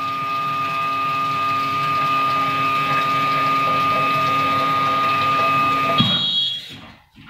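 Milk vending machine's dispensing pump running steadily with a constant high whine over a low rumble, then cutting off with a click about six seconds in.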